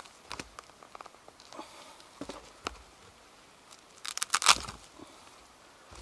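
Light scrapes, clicks and crunches of hands handling things, with a louder cluster of crunching about four and a half seconds in.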